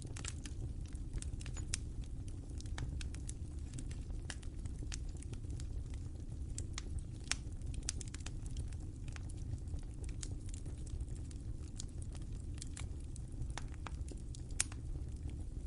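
Wood fire burning with a steady low rumble and irregular sharp crackles and pops, one louder pop near the end.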